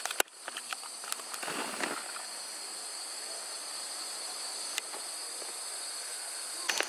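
Steady chorus of insects: a continuous high-pitched shrill buzz held at two pitches, with a few faint clicks.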